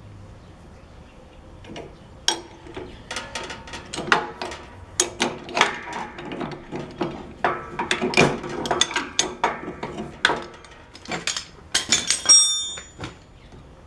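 Irregular metallic clicks, clanks and scrapes of hand tools and loose parts being worked on a metal-cutting band saw. They start about two seconds in and end with a bright, ringing metal clink near the end.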